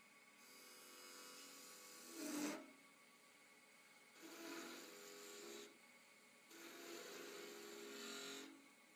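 Hand-held turning tool cutting into a wooden honey dipper spinning on a wood lathe: three separate scraping cuts of one to two seconds each, the first the loudest near its end, over the lathe's faint steady hum.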